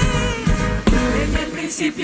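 Live Pentecostal worship music: a band with drums and bass behind a singing voice. The bass and drums thin out in the second half.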